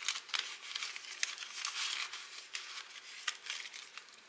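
Dollar bills and a clear plastic zipper pouch in a ring binder rustling and crinkling as the bills are tucked into the pouch, with many small clicks and crackles.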